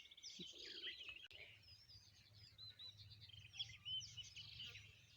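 Faint birdsong: several small birds chirping and trilling with quick, high, repeated notes.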